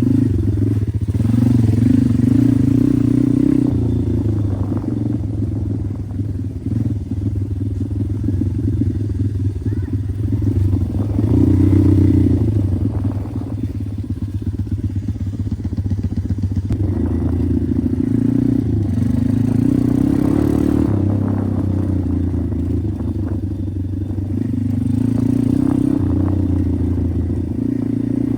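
Pit bike engine running under way, the revs rising and falling over and over as the throttle is worked.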